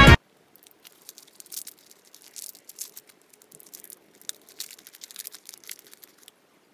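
Music cuts off just after the start. Then a foil sweet wrapper being unwrapped by hand gives faint, irregular crinkles and crackles, which stop shortly before the end.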